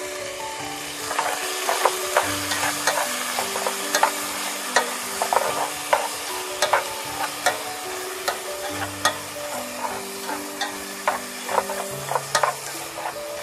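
Chopped pork belly and shrimp sizzling in oil in a metal pot, a steady frying hiss. Wooden chopsticks stir the mixture and click against the pot from about a second in.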